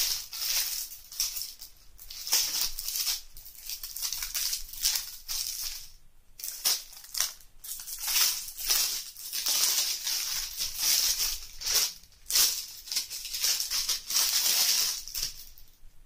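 Clear plastic bag crinkling and rustling in irregular bursts as it is handled and opened.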